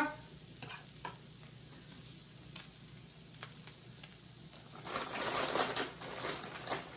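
Oil-soaked tortillas frying in a pan, a low crackling sizzle with scattered pops that swells louder for about two seconds near the end.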